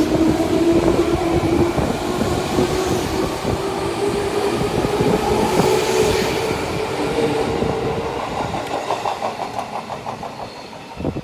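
JR 205 series electric train pulling out of a station: the traction motors hum and rise slowly in pitch as it gathers speed, over the fast clickety-clack of wheels on rail joints, which fades toward the end as the train draws away.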